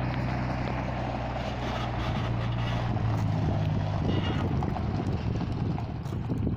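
Diesel engine of a Mercedes-Benz 1313 truck, fitted with a 1518 engine, running at low revs as the loaded truck pulls slowly away. About two seconds in, the engine note turns rougher and a little louder.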